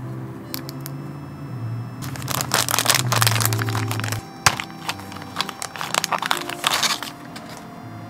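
Thin clear plastic packaging crinkling in two stretches as a wire keycap puller is handled and slid from its sleeve, with a single sharp click between them, over soft background music.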